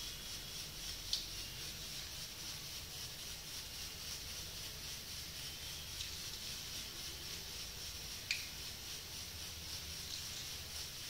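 Marinated chicken pieces frying in hot oil in a steel kadai: a steady sizzling hiss, with a few sharp pops as pieces are dropped into the oil.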